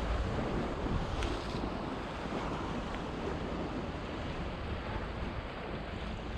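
Sea surf washing against rocks, with steady wind buffeting the microphone.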